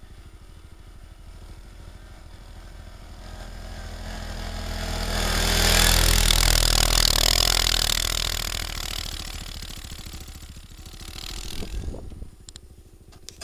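A small off-road vehicle's engine approaching, passing close and moving away, loudest about six seconds in, with a hiss of snow over the engine note.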